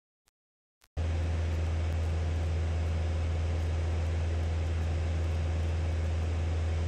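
Steady drone of a light aircraft's piston engine and propeller in flight, heard inside the cockpit, with a strong low hum. It starts suddenly about a second in and holds unchanged.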